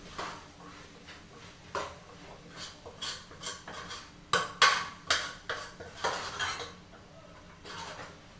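A cooking spoon scraping and clinking against a steel pot as food is stirred: irregular strokes, sparse at first, then a busy run of them in the middle, then one more near the end.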